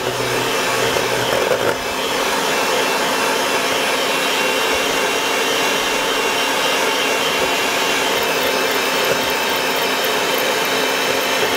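Electric hand mixer running steadily, its two wire beaters whipping cold cream and powdered sugar into chantilly cream in a stainless-steel bowl.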